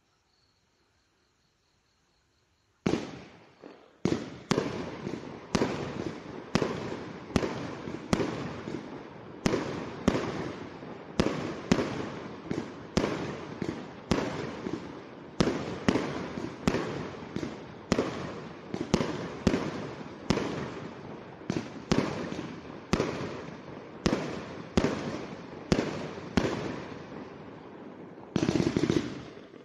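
Aerial fireworks going off in a steady string of sharp bangs, about two a second, each trailing off after the blast. They start about three seconds in, and near the end comes a louder, denser volley.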